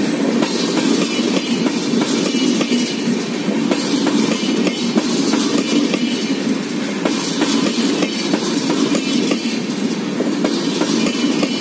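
LHB passenger coaches rolling past close by: a steady rumble of steel wheels on rail, with many short sharp clicks as the wheels run over the rail joints.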